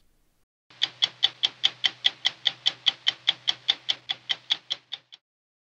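A watch ticking fast and evenly, about five ticks a second, over a faint low hum. It starts just under a second in and stops about five seconds in.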